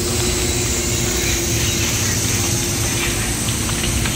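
Steady hum with an even rushing noise and a low steady tone underneath, like a running fan or machine.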